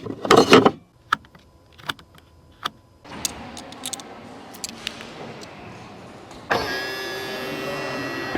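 A brief loud rattle, then a few sharp clicks, a steady hiss from about three seconds in, and from about six and a half seconds in a steady electric-motor whine on the Mercedes-AMG GLC 43, typical of a power window moving.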